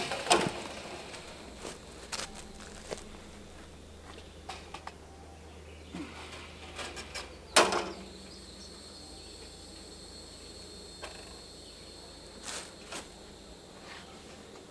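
A steel rebar twist stick being turned in the brace wire of a wooden H-brace fence: scattered knocks and scrapes, the loudest about a third of a second in and just before eight seconds. Underneath is a steady high drone of insects.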